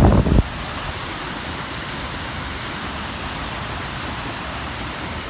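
Floodwater rushing with a steady, even noise. Wind buffets the microphone for about the first half second.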